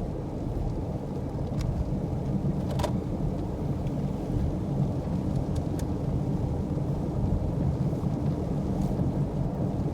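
Car driving along: a steady low rumble of road and engine noise, with a few faint clicks.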